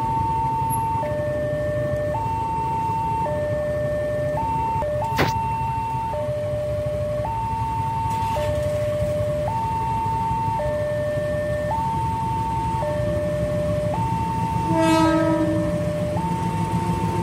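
Railway level-crossing warning alarm sounding a steady hi-lo two-tone signal, each tone held about a second, over low traffic rumble. A single sharp knock comes about five seconds in, and a short horn blast near the end.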